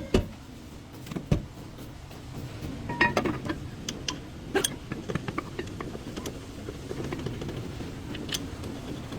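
Scattered metal clicks and knocks of hand work on car brake parts, over a low steady hum, with a quick cluster of knocks about three seconds in.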